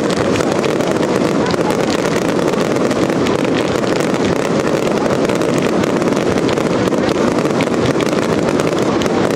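Many consumer fireworks cakes firing at once in a continuous barrage: an unbroken rumble of launches and bursts with a constant scatter of sharp cracks and pops.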